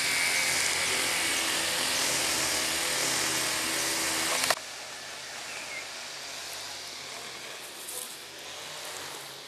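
Motorised grass cutter running steadily at an even pitch, then cut off abruptly about four and a half seconds in, leaving a much quieter outdoor background.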